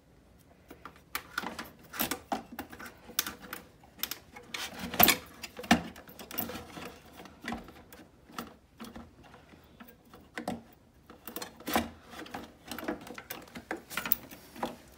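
New LG refrigerator condenser coil clattering and scraping against the metal cabinet as it is pushed into place by hand: a run of irregular clicks and knocks, loudest about five seconds in.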